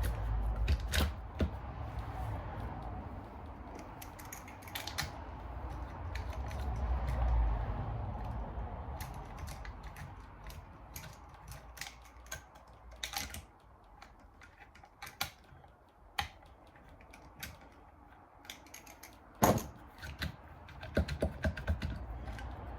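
Scattered light clicks and clinks of hand tools and bolts as the cylinder head bolts of a Suzuki LTR 450 engine are backed out. Low bumps of handling in the first several seconds, and one sharper knock about 19 seconds in.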